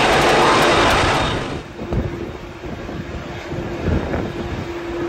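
Jet aircraft noise on the apron: a loud rushing that drops away sharply about one and a half seconds in, leaving a lower rumble with a steady hum.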